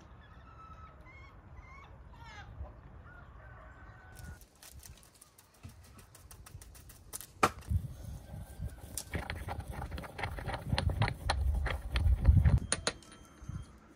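Fowl calling with short pitched calls for the first few seconds. Then a clatter of sharp clicks and knocks over low thumps, busiest and loudest near the end.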